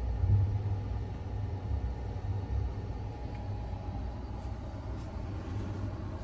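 Low, steady rumble of the Sunrise Seto sleeper train, a 285 series electric train, running along, heard from inside a compartment. A few faint ticks come in the second half.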